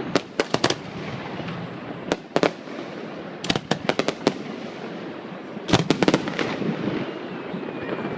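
Fireworks bursting in quick clusters of sharp cracks and bangs, several groups a second or two apart, over a steady rumble of crowd and harbour noise.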